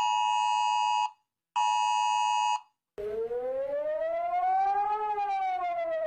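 The two-tone attention signal of an Emergency Alert System alert, sounding in two bursts of about a second each with a short gap. About three seconds in, another alert begins: a siren rising slowly in pitch for two seconds and then falling.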